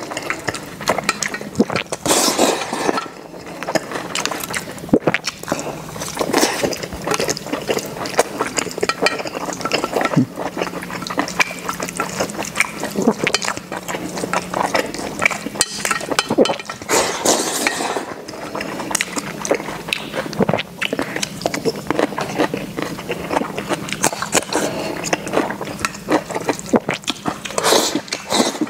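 Mukbang eating sounds: wet slurping and chewing of a soft tofu-and-egg dish with minced meat, with chopsticks clicking and clinking against a stainless-steel bowl.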